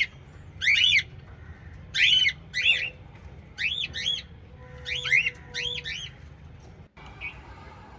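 Cockatiels chirping: a string of short calls that rise and fall, often two or three in quick succession, stopping about seven seconds in.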